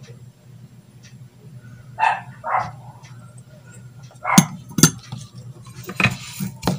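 A dog barking a few times in short, separate barks: two about two seconds in, then sharper ones near the middle and end.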